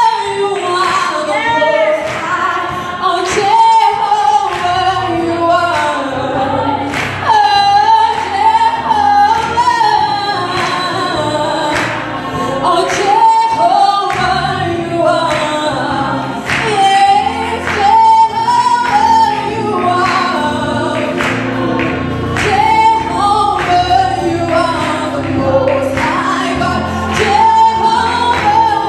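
A woman singing a gospel worship song into a handheld microphone, her melody rising and falling in long phrases over held low accompaniment.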